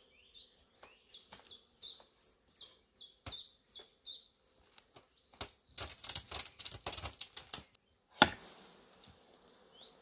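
Ratchet strap being cranked tight around a stack of wooden beehive boxes: a regular run of clicks, about three a second, each with a short high squeak, then a quicker burst of louder clicks. A single heavy thump comes just after eight seconds in.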